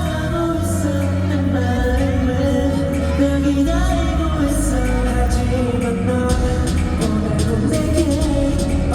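K-pop song with male voices singing over a loud backing track with a heavy bass line and a steady beat.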